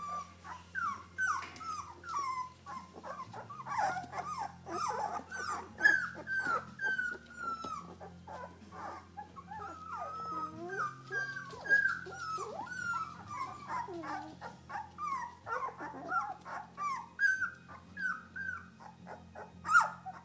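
A litter of two-and-a-half-week-old Labradoodle puppies squeaking and whimpering without pause: many short, high calls that slide down in pitch, overlapping one another.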